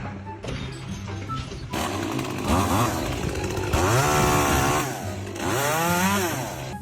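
Chainsaw running and revving, starting about two seconds in, its pitch rising and falling twice, over background music.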